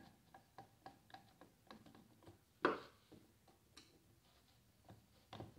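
Hand ratchet wrench clicking in short runs as it is worked back and forth on the motor housing bolts, with one louder metal knock a little before the middle.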